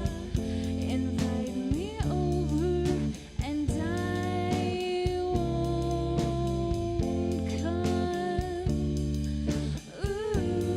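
Band music: guitar playing held notes with bending slides over bass and drums, with a bluesy feel.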